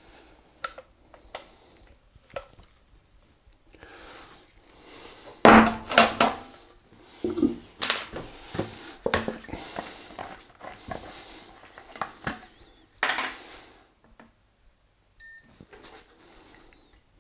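Metal paint can and lid clanking and knocking against a workbench as the can is handled and closed. It starts with a few scattered clicks, then a dense run of sharp knocks and rattles through the middle.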